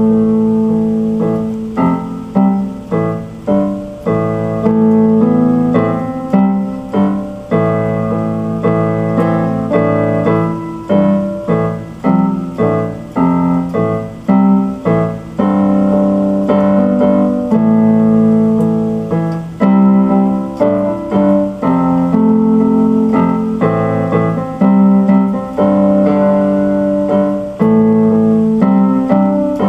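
Instrumental music on an electronic keyboard with a piano voice: a slow piece of chords over bass notes, struck every second or two, each ringing on and fading.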